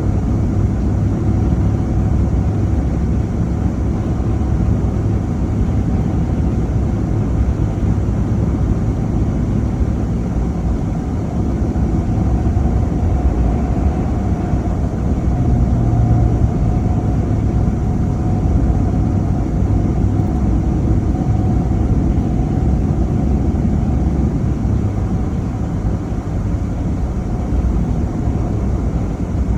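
A car driving at steady speed: a continuous low rumble of engine and road noise, with a faint steady tone above it.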